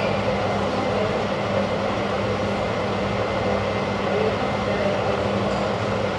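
Steady mechanical drone with a constant low hum, with no distinct events.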